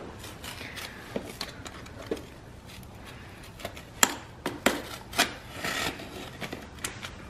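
Utility knife cutting cardboard: scattered scrapes and sharp clicks, the sharpest a little past the middle, with a short rasping stretch near the end.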